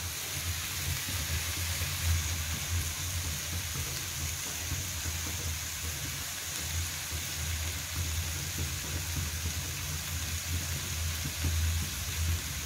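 Steady hissing noise with a low, uneven rumble underneath.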